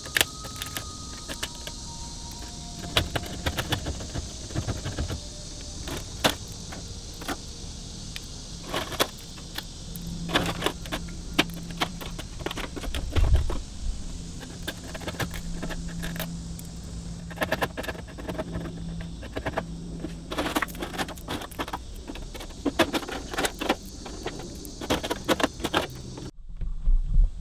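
Irregular metallic clicks, clinks and knocks of hand work on a car's body panels and trim, over a steady high hiss that drops away near the end.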